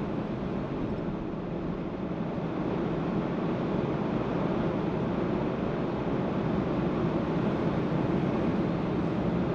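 Steady road and engine noise of a car driving, a low rumbling hiss with no distinct events, growing slightly louder about three seconds in.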